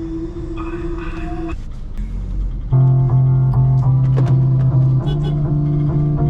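Music: a held tone at first, then, about three seconds in, a louder passage of plucked guitar over a steady, repeating bass pattern.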